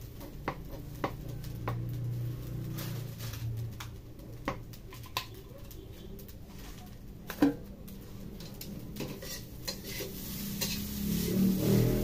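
Metal spatula knocking and scraping on a stainless steel wok while rice is fried, with light sizzling. Scattered sharp clicks come over a low steady hum, the loudest knock about seven seconds in. The stirring and scraping grow busier and louder near the end.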